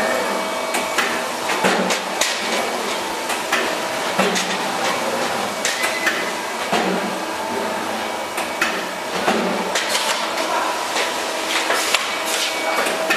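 Hydraulic die-cutting presses at work on a factory floor: irregular sharp knocks and clatter, several a few seconds apart, over a steady machinery drone.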